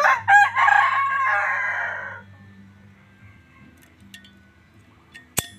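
A rooster crowing once, a loud call about two seconds long with a broken start. Near the end comes a single sharp click.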